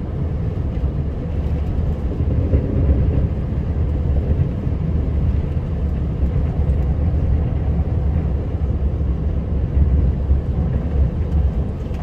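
Heavy plow truck driving through deep snow, heard from inside the cab: a steady low rumble of engine and road noise that swells and dips unevenly, with the storm's wind against the truck.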